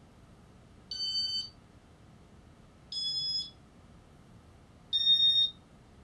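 Casablanca Inteli-Touch ceiling fan control beeping three times, two seconds apart, each beep a short steady high tone at a slightly different pitch, the last one loudest.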